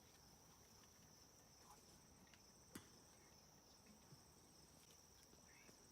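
Near silence with faint, steady insect chirring, and one faint click about three seconds in.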